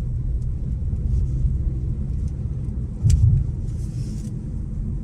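Steady low rumble of a car on the move, heard from inside the cabin. A single short knock comes about three seconds in, with a brief swell in the rumble just after it.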